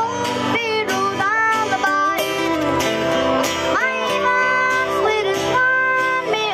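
A boy singing a country song while strumming an acoustic guitar, his voice jumping quickly up in pitch on several notes.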